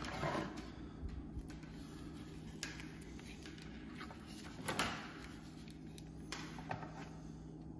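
Light handling noise as a small plastic electronics unit and its coiled cable are picked up and turned over in the hands: a few soft knocks and rustles, the clearest about halfway through, over a faint steady low hum.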